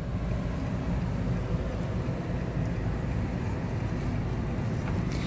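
Steady low hum inside the cab of a 2014 Nissan Titan pickup, the parked truck running, with no single event standing out.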